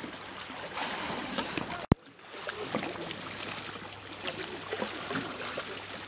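Sea water sloshing and splashing close around a camera held at the surface by a swimmer, with a sharp click about two seconds in.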